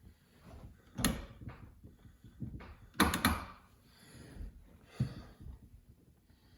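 A few sharp knocks and clicks of hands handling parts in a car's interior. One comes about a second in, a quick cluster about three seconds in is the loudest, and another comes near five seconds.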